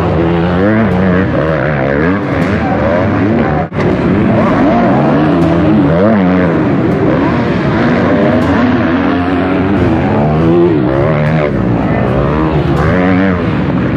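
Several motocross bike engines revving up and falling off again, overlapping as the bikes race over the track. The sound drops out briefly about four seconds in.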